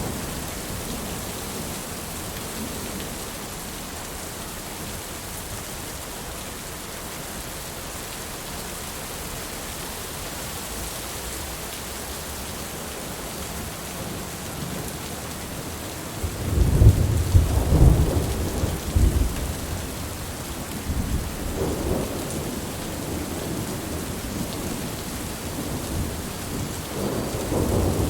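Heavy rain falling steadily, with rolls of thunder: a loud low rumble about two-thirds of the way through lasting a few seconds, then weaker rumbles, and another building near the end.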